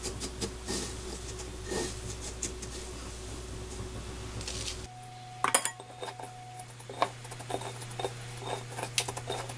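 Hands pressing squid rings into a bowl of breadcrumbs, with soft rustling and scattered light clinks and taps as the rings and fingers touch the ceramic bowl and a stainless steel plate; the sharpest click comes about halfway through.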